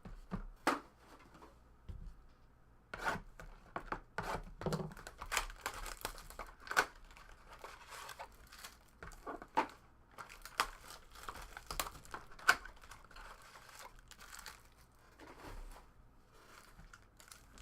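Trading-card packaging being torn open and crinkled by hand: irregular rips and crackles of wrappers and box, with a few sharper snaps.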